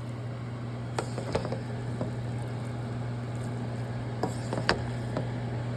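A steady low hum with a light hiss, and a few short sharp clicks or taps, two of them about a second in and two more near the end.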